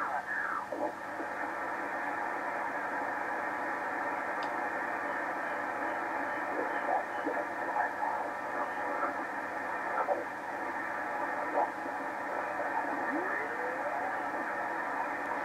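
Drake TR7 transceiver's receiver putting out a steady band hiss as its main tuning knob is turned across the band, with faint snatches of passing signals. A whistle rises in pitch near the end.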